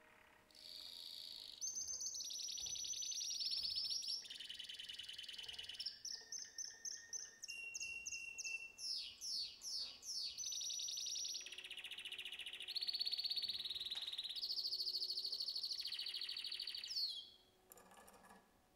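Bird-like electronic chirping and trilling from the dance piece's soundscape: high, rapidly pulsing tones in stretches of a second or two, with a run of quick sweeping glides near the middle. It stops about a second and a half before the end.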